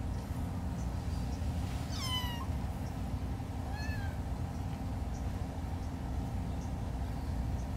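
Kitten meowing twice: a high meow falling in pitch about two seconds in, then a shorter one about two seconds later, over a steady low rumble.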